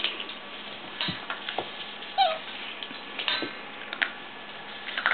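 Six-week-old Aussiedoodle puppies playing on a wooden floor: scattered light scuffles and clicks, and one short whimper about two seconds in.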